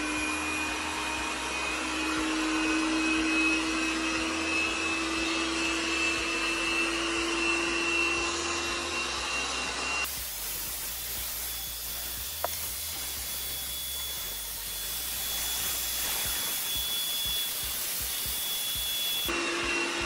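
Tesvor M1 robot vacuum cleaner running in its cleaning mode: a steady fan hum with a high whine as it drives over floorboards. About halfway through, the sound changes abruptly to a different whine and hiss.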